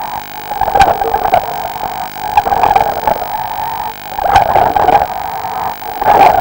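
Diver's breathing on a surface-supplied dive helmet, heard over the dive communications line: rushing surges of air and exhaust bubbles roughly every two seconds over a steady electrical hum.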